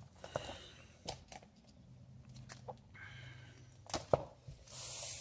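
Comic books being handled and set down: scattered light taps and clicks with soft paper rustling, and a short sliding hiss near the end.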